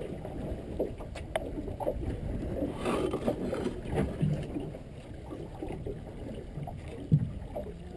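Sea water lapping against the hull of a small drifting fishing boat, with a few light knocks on board, the loudest about three seconds in.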